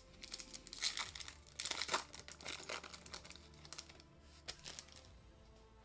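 Foil trading-card pack wrapper crinkling as it is opened by hand, in two louder bursts of crackling about one and two seconds in, then fainter rustling that fades out.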